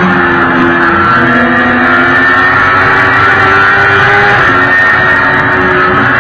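Sportbike engine running steadily at highway cruising speed, heard through heavy wind rush on a bike-mounted camera.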